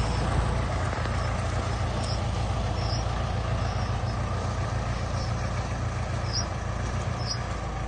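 Small farm tractor's engine running steadily as it hauls a load of coconuts, its rumble easing slightly near the end. A few faint, short high chirps sound over it.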